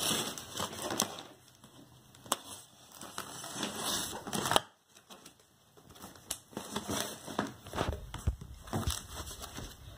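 Scissors slicing along the packing tape on a cardboard box seam, with rustling and scraping of the cardboard as it is handled, then the box flaps being pulled open against foam packing. A short quiet gap falls a little before halfway.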